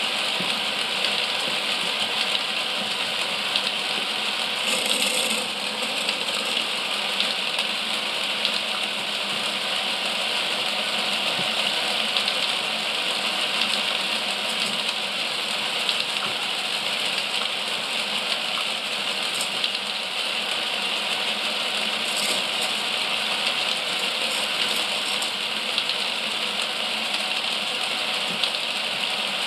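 Mould King 11012 motorised plastic-brick roller coaster running: its electric motor drives the plastic chain lift with a steady clatter, dotted with small clicks and rattles of the cars on the track.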